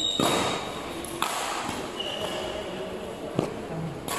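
Badminton rackets hitting a shuttlecock during a rally, four sharp hits a second or two apart, echoing in a large hall.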